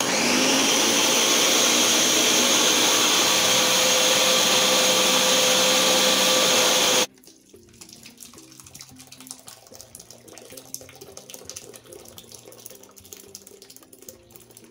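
Countertop blender starts suddenly and winds up over the first half second, then runs steadily, pureeing grapes, cucumber, ginger and water, and stops abruptly about seven seconds in. After it comes a much quieter pour of the blended juice through a mesh strainer into a glass bowl.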